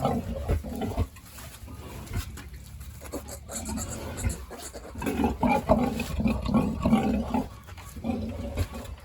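Pigs grunting, with a run of louder, closely spaced grunts in the second half.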